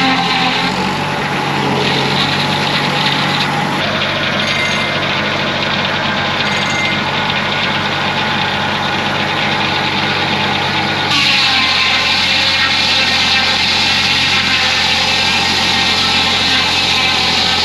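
Homemade bandsaw sawmill running steadily with an engine-like hum. About eleven seconds in, the sound shifts: the low hum drops and a higher hiss grows louder.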